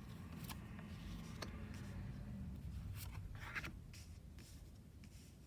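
Oracle cards being handled: a few light taps and a short rustle of cardstock about three and a half seconds in, over a low steady room hum.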